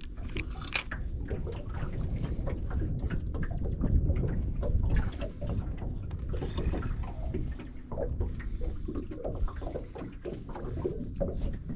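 Wind rumbling on the microphone and water lapping against a small boat's hull, with scattered light clicks and ticks throughout and a sharper click about a second in.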